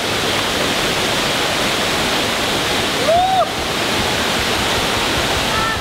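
Waterfall and falling spray rushing steadily, with one short rising-and-falling shout from a person about three seconds in.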